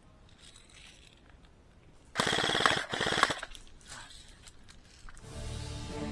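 Airsoft rifle firing two rapid full-auto bursts about two seconds in, the second one shorter, followed by a few faint clicks. Music comes in near the end.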